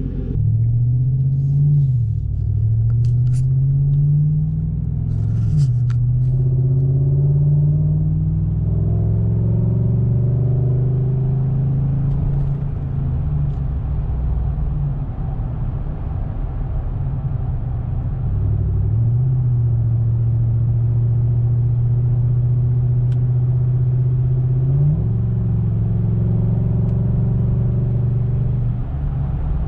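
Chevy Silverado's 5.3-litre V8 running through an MBRP cat-back exhaust while driving. The engine pulls up in pitch and drops back at two upshifts in the first six seconds, then holds a steady drone. Near the end its pitch steps up suddenly.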